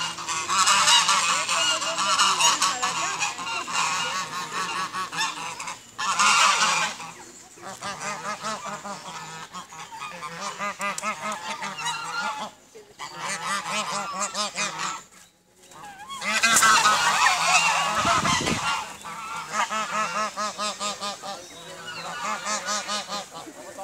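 A flock of white domestic geese honking over and over in a fast, overlapping chatter of short calls that rise and fall in pitch, with a few brief lulls.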